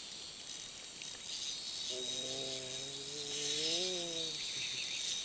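Steady high-pitched chorus of insects buzzing, with a man's long drawn-out "oooh" rising slightly in pitch from about two seconds in to past four seconds.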